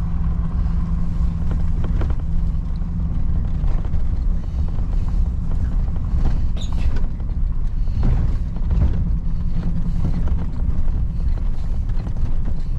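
Pickup truck driving on a dirt road, heard from inside the cab: a steady engine hum and road rumble, with scattered knocks and creaks from the cab as it goes over bumps.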